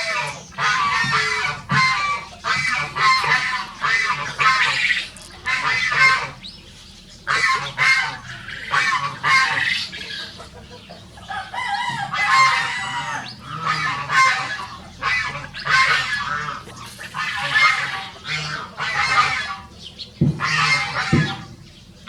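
Domestic poultry calling: a run of many short, harsh, honking calls one after another, with a few longer crow-like calls among them. Two low thumps come near the end.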